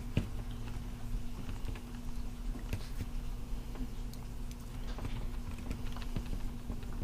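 Scattered light clicks and taps of small parts being handled, as an oversized aluminum beadlock wheel and tire is worked onto an RC truck's hex hub, over a steady low hum.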